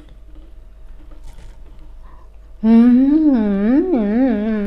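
A woman's closed-mouth "mmm" hum of enjoyment while eating, starting a little past halfway and lasting about two seconds, its pitch wobbling up and down.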